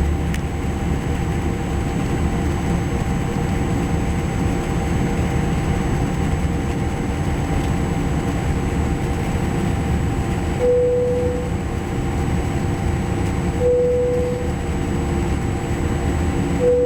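Steady noise inside a Boeing 787 Dreamliner's cabin from the engines and airflow on the ground. In the second half, three short tones sound about three seconds apart.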